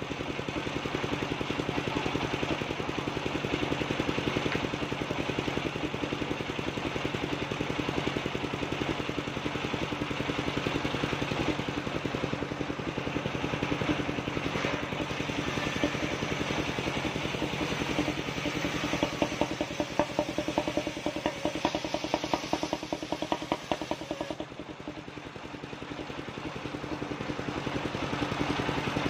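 Engine-driven mobile circular sawmill running steadily, its large circular blade ripping timber planks lengthwise over the engine's steady chugging. About three-quarters of the way through the cutting sound drops away for a few seconds, then builds again near the end.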